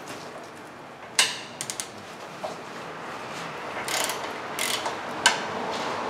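Hand ratchet clicking in short spells, with sharp metallic clicks and a quick run of three, as it loosens a brake caliper mounting bracket bolt. A steady hiss rises in the background from about halfway through.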